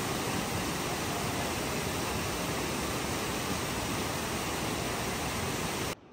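Steady rushing of a waterfall, an even noise without pitch or rhythm, cutting off abruptly near the end.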